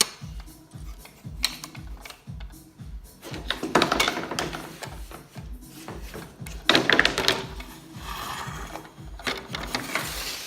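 Background music with a steady beat of about two thumps a second. Three louder harsh, noisy stretches of sound come over it: about four seconds in, about seven seconds in, and from about eight to ten seconds in.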